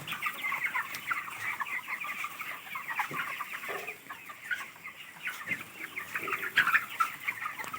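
A large flock of chickens calling, a dense continuous din of many short overlapping calls.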